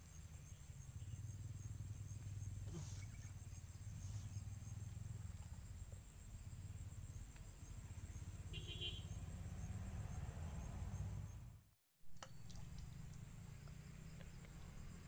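Steady high-pitched insect chorus, such as crickets, over a constant low rumble. The sound cuts out completely for a moment about twelve seconds in, then carries on unchanged.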